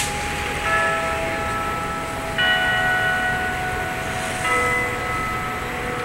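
Wako building clock tower bells chiming a slow tune: three notes of different pitch, about two seconds apart, each ringing on under the next. A sharp click right at the start.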